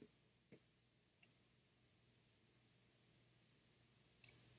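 Near silence broken by a few faint computer mouse clicks, spaced out: about half a second in, a little past a second, and a slightly louder one near the end.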